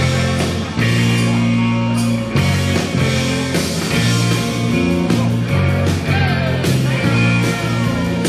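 Live rock-and-roll band playing an instrumental passage: electric guitar over a moving bass line.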